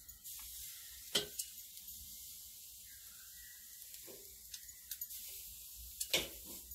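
Beef fillet steaks sizzling steadily on a hot grill grate as they are turned with metal tongs, with a few sharp clicks of the tongs on the meat and grate.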